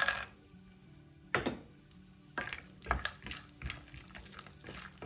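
Chopped cashews tipped into a nonstick pan of hot ghee with almonds. A sharp knock comes about a second and a half in, then a spatula stirs the frying nuts with repeated scrapes and taps against the pan.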